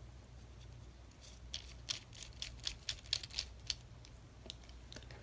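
Small sharp clicks and ticks, about a dozen from about a second in, with two more near the end, as the handle nut goes back onto a Shimano Curado baitcasting reel and the handle is fitted.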